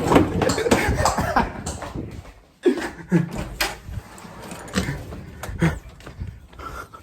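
Loud commotion indoors: a rush of scuffling and rustling for the first couple of seconds, then short shouts or gasps with scattered knocks and bumps.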